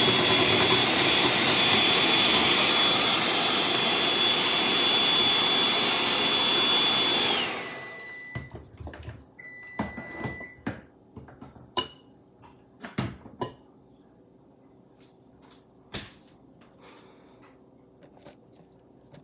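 Electric hand mixer running with its beaters in thick cake batter in a glass bowl, a steady high whine over the motor noise; it switches off about seven seconds in and winds down. A run of light knocks and clicks follows.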